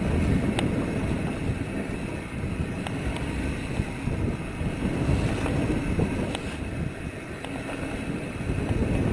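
Wind buffeting the microphone of a camera on a mountain bike riding down a dirt singletrack, over the rumble of the tyres on the dirt, with a few faint clicks and rattles from the bike.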